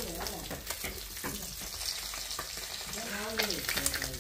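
Small fish sizzling in hot oil in an iron kadhai, with a metal spatula clicking and scraping against the pan as the fried fish are stirred and lifted out.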